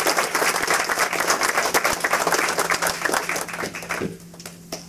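Audience applauding at the end of a talk, a dense patter of claps that thins out and stops about four seconds in, with a few last scattered claps.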